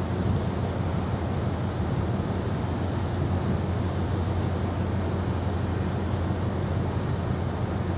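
Steady low engine drone of a boat's engine running under way, with an even wash of wind and water noise over it.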